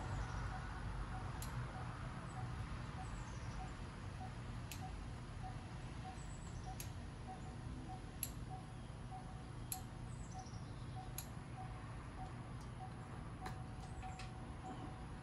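Faint, scattered metal clicks about a second or two apart as a wrench works the loose turbocharger oil feed line fitting, over a low steady hum.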